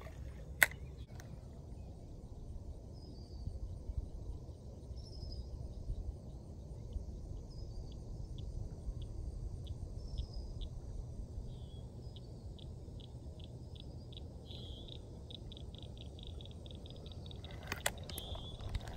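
Quiet outdoor ambience beside a pond: a low wind rumble, a few faint bird chirps, and a long run of short high ticks that come faster toward the end. A single sharp click about half a second in, and a brief rustle of handling near the end.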